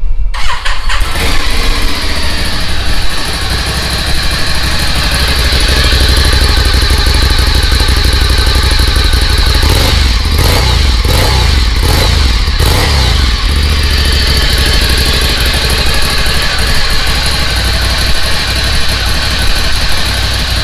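A Ducati Scrambler's L-twin engine on its stock exhaust fires up right at the start and runs at idle. It is blipped several times about ten to thirteen seconds in, then settles back to a steady idle.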